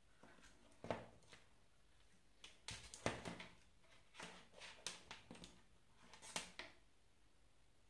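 Light knocks and clicks from a soldering iron and wires being handled against a wooden board, coming irregularly, singly and in short clusters.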